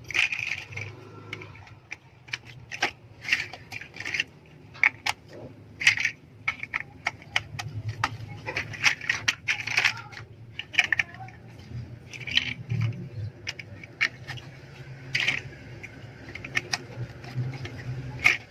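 LEGO bricks clicking together and small plastic pieces clattering as they are handled, in irregular sharp clicks and short rattles, over a low steady hum.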